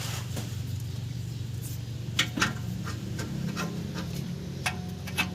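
Hand tools clicking and tapping on engine parts a few times, over a steady low hum.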